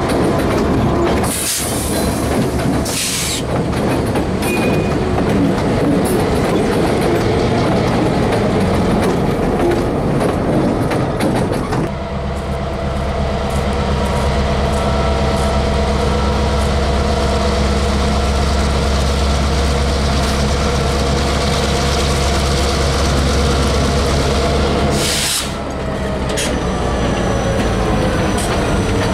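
Diesel locomotives of a Norfolk Southern first-responders training train rolling slowly past, engines running with a steady low drone. A few short bursts of hiss come through near the start and again near the end.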